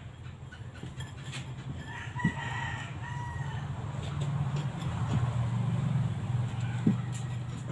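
A rooster crows once, about two seconds in, over a low steady hum that grows louder in the second half. A few sharp metallic clinks from hand tools being worked under the vehicle.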